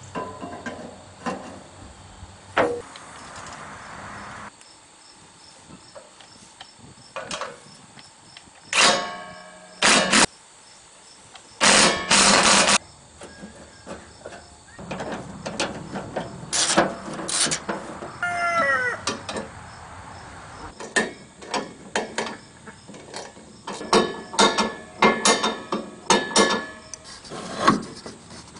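Cordless drill running in several short bursts, mixed with metal clanks and knocks from work on the tractor's exhaust and sheet metal.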